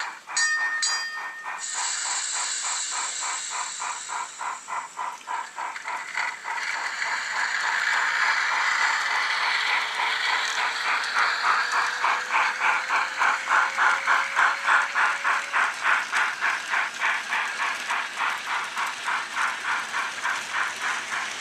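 Model Beyer Garratt steam locomotive's LokSound sound decoder playing steady exhaust chuffs, about four a second, over a hiss of steam.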